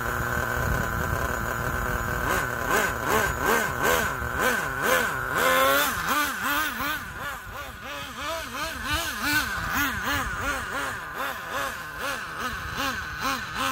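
Traxxas Nitro 4-Tec RC car's two-stroke nitro engine idling, then revved in repeated throttle blips, its pitch rising and falling about twice a second as the car pulls away; it grows fainter after about six seconds.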